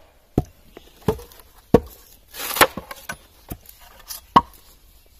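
A shake being split from a western red cedar block with a froe: a string of sharp knocks and cracks, with a short tearing crackle about halfway through as the shake comes away.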